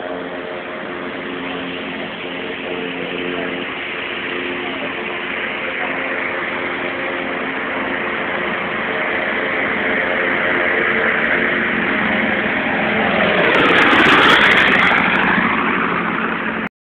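North American B-25 Mitchell's twin radial engines on a fly-by: a steady engine drone that grows louder as the bomber approaches, peaks with a sweeping change in tone as it passes, about fourteen seconds in, then begins to fade.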